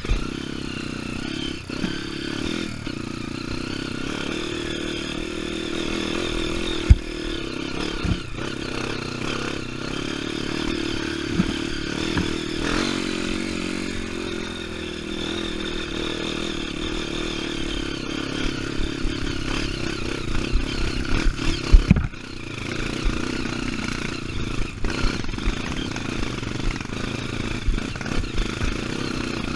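Dirt bike engine running while being ridden, its pitch rising and falling with the throttle. A couple of sharp knocks and frequent rattling clatter come from the bike over rough ground.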